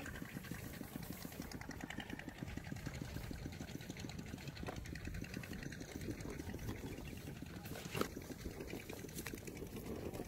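A small engine running steadily with a fast, even pulse, and a single sharp click about eight seconds in.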